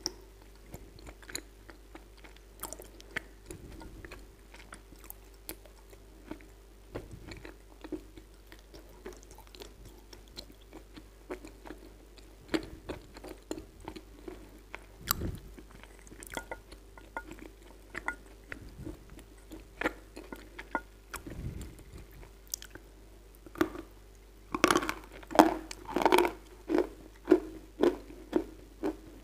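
Close-miked biting and chewing of chunks of Kyrgyz edible clay: scattered small crunches and clicks throughout, with a run of louder, denser crunches near the end.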